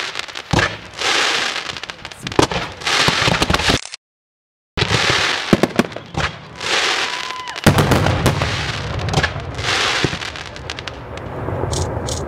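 Fireworks cakes firing: sharp bangs and long stretches of dense crackling. The sound drops out to silence for under a second about four seconds in, then comes back with a low rumble under many quick cracks.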